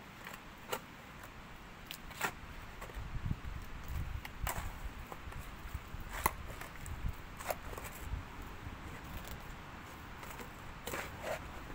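Hand digging with a pickaxe in stony clay ground: about six sharp strikes at uneven intervals, one to two seconds apart, with dull thuds in between.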